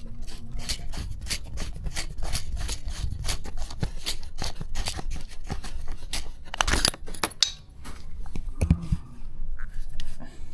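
Top cap of a 26 mm Chinese carburettor being unscrewed by hand: a fast run of small scratchy clicks and scrapes from the cap's threads and fingers on metal, with a louder scratchy rustle about seven seconds in.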